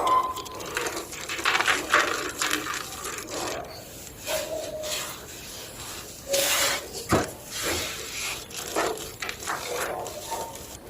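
Homemade gym chalk block being crushed, with irregular crunches, crumbling and scraping and a louder crunch about six seconds in.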